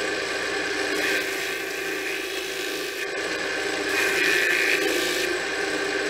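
Lathe spinning a sanding disc with a steady whir, while a small wooden pyramid-shaped block is pressed against the abrasive, giving a rough sanding rasp that swells in spells, loudest about four seconds in.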